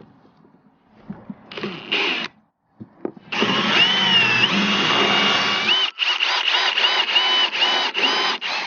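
Power drill cutting through sheet metal with a hole saw. It starts with a couple of short bursts, then runs for about two and a half seconds with a wavering whine, and near the end it is pulsed in a quick series of short trigger bursts.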